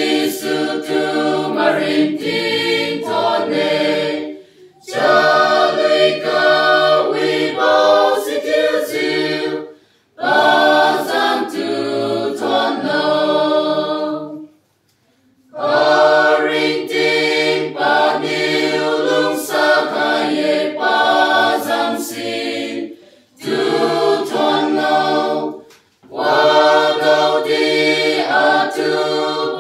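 Mixed choir of young men and women singing a cappella, with no instruments, in phrases of a few seconds separated by brief pauses for breath.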